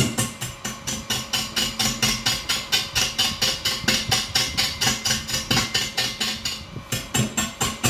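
Wood lathe spinning a large, still out-of-round log blank while a hand-held gouge roughs it down. The tool knocks against the high spots once per revolution, about four to five knocks a second, over a faint steady motor hum.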